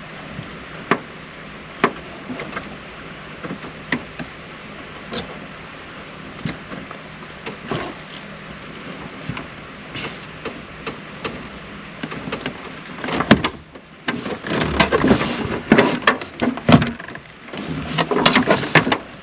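Small plastic parts being handled and pushed together by hand: the ambient light sensor and its retaining clip being worked into place. There are scattered sharp clicks at first, then a dense, louder run of clicking and knocking over the last few seconds.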